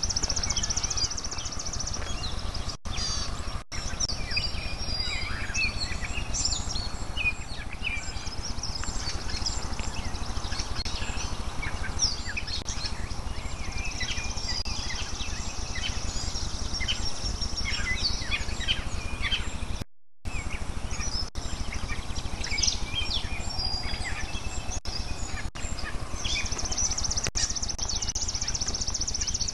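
Many wild birds chirping and singing together in a morning chorus, with a high buzzy trill at the start and again near the end, over a steady low rumble.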